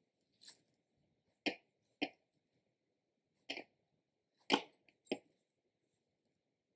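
About six brief, soft clicks and knocks at uneven intervals, the loudest about four and a half seconds in, from hands handling cotton wicks at a table, with near quiet between them.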